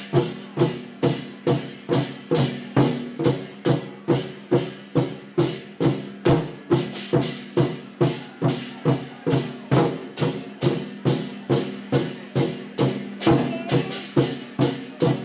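Chinese war drums (zhangu) played in an even, steady beat of about two and a half strokes a second, each stroke ringing briefly, over a steady low drone.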